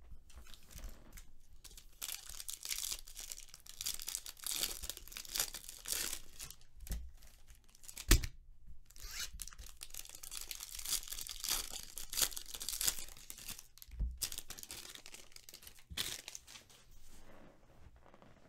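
Bowman Draft baseball card packs being torn open by hand, their wrappers tearing and crinkling in long rustling stretches, with a sharp knock about eight seconds in and two smaller ones later.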